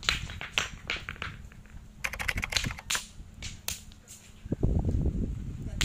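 A quick, irregular series of sharp clicks and cracks. A low rumble comes in about four and a half seconds in.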